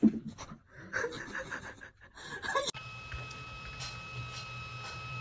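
A cat's yowl trails off in falling pitch, followed by quick rhythmic panting, about six breaths a second. About two and a half seconds in, the sound cuts to a steady high whine over a low hum.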